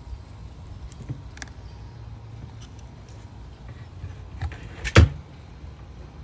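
Light clicks and knocks of a small water pump and its tubing being handled and set on the bottom of a fountain basin, with one loud knock about five seconds in.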